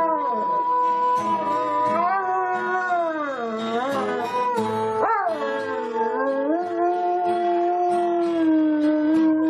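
A dog howling in long, drawn-out notes that slide slowly up and down in pitch, with a quick upward swoop about five seconds in.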